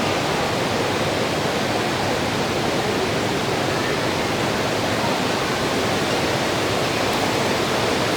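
Heavy rain falling, a steady even wash of noise.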